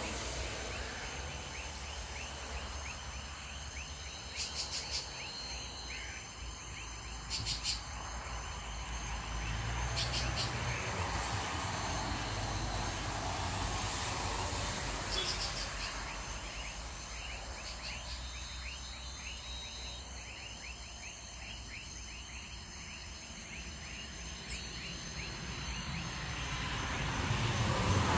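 Chorus of insects and frogs: a fast, steady pulsing trill with high, even buzzing over it, and a few short sharp calls standing out.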